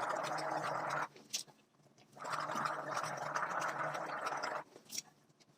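A person gargling warm salt water. One gargle stops about a second in, and a second one of about two and a half seconds follows, with brief clicks in the pauses.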